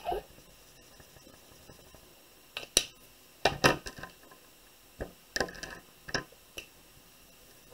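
Plastic felt-tip pens being picked up from a pile, clicking and clattering against each other and the table in a few short groups of sharp clicks, starting a couple of seconds in.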